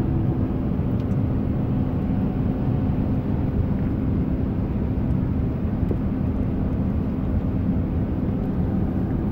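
Steady road and engine noise of a car driving at highway speed, heard inside the cabin, with a low, even drone.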